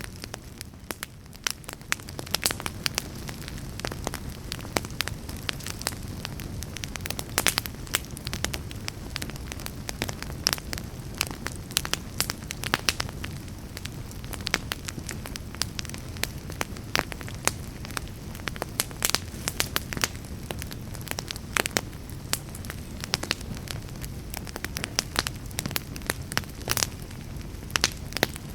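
Fire crackling in a fireplace: irregular sharp pops and snaps over a low, steady rumble of the flames.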